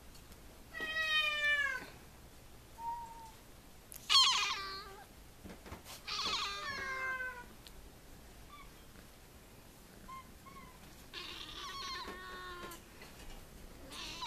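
Siamese kittens meowing: four meows of about a second each, falling in pitch, the loudest about four seconds in, with a few short faint chirps in between.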